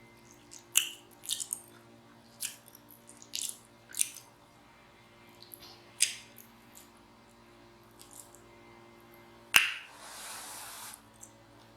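Close-miked eating sounds: soft wet clicks and lip smacks every second or so while chewing soft, cheesy baked macaroni, with a short breathy exhale about ten seconds in.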